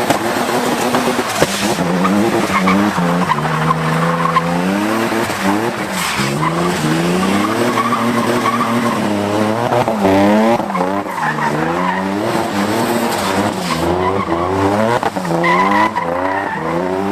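A car engine revving up and down over and over, with skidding tyres squealing, as a car drifts.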